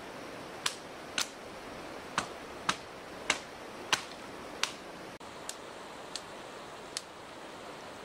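Dry sticks snapping by hand, about ten sharp cracks: seven loud ones in the first five seconds, then three fainter. Under them runs the steady rush of a shallow stream.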